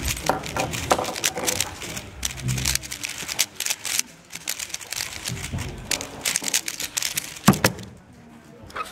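Stickerless 3x3 speedcube being turned fast by hand: a rapid run of plastic clicks and rattles from the layers snapping round. About seven and a half seconds in there is a single sharp knock as the solved cube is set down and the stackmat timer is stopped.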